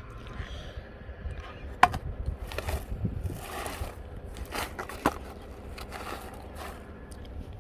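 Objects being handled and moved about: a few sharp knocks and clicks, the loudest about two seconds in, with scraping and rustling in between, over a steady low rumble.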